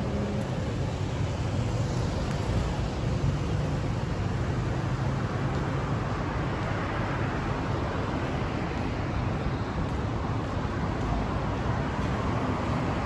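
Steady, even rumble of vehicle noise with a low hum underneath.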